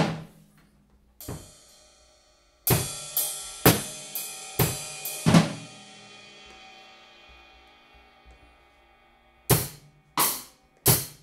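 Acoustic drum kit played in loose, improvised strikes. A crash opens it and another strike comes about a second later. Then comes a run of about six cymbal crashes and drum hits over some three seconds, which ring on and slowly fade, and three more hits follow near the end.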